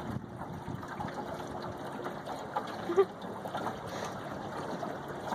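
Water lapping and trickling against a small fishing boat's hull, with one brief sharper sound about three seconds in.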